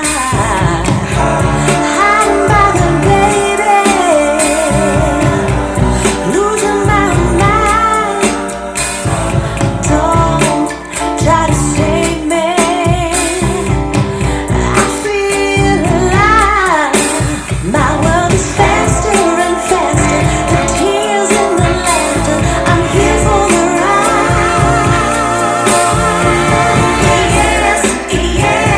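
Pop song with a female lead voice singing held notes with vibrato over a steady bass line.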